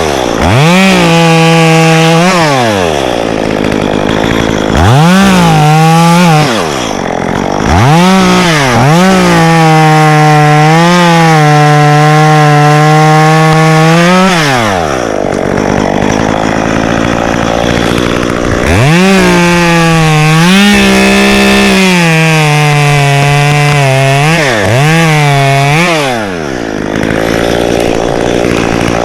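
Two-stroke Stihl chainsaw cutting wood. It is revved to full throttle in several runs, the longest about six or seven seconds, and drops back to idle between them, with a few quick throttle blips near the end.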